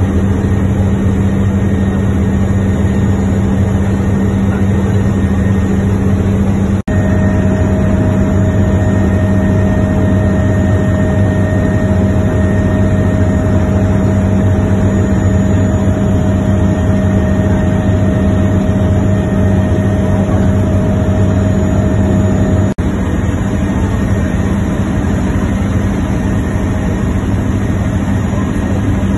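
Helicopter cabin noise in flight: the steady, loud drone of the engine and rotor with a deep low hum. It cuts out for an instant twice.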